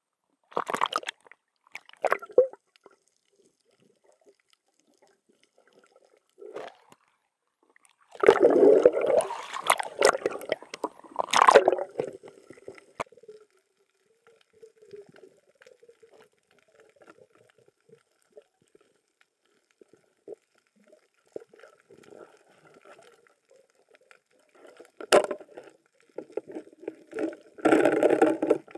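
Muffled underwater gurgling and bubbling in irregular bursts, one longer stretch in the first half, with a sharp click near the end followed by more bubbling.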